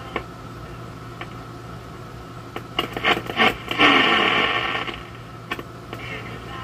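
Static and crackle from a 1980s AM/FM radio as its tuning knob is turned, with a run of clicks and then a loud burst of static about four seconds in, a tone gliding down beneath it, over a steady low hum.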